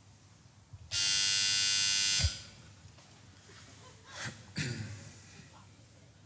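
Electric apartment doorbell buzzer sounding once, a harsh buzz lasting a little over a second. Two short, quieter sounds follow about two seconds later.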